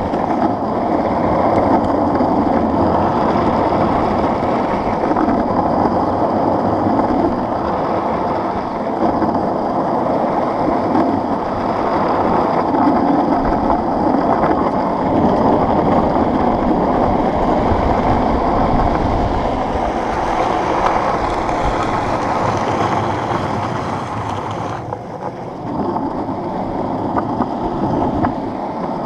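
Soft urethane longboard wheels rolling over asphalt, a steady loud rolling noise mixed with wind on the board-mounted microphone. Near the end the noise briefly drops and turns duller, then picks up again.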